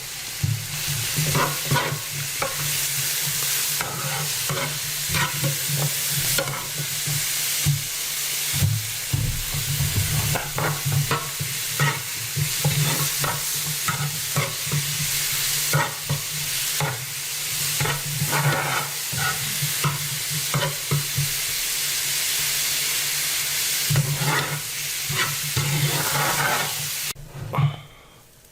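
Zucchini, chicken and kimchi frying in oil in an electric deep-dish skillet, sizzling steadily while a utensil stirs and knocks against the pan, over a steady low hum. The sizzle cuts off suddenly near the end.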